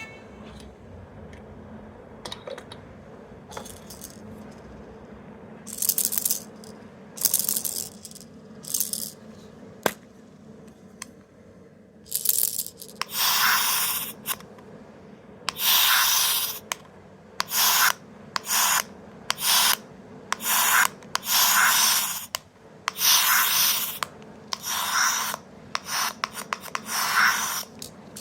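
A run of short, irregular hissing, rasping noise bursts, sparse at first and then coming thick and fast, each lasting well under a second to about a second, from a sound-making capsule toy.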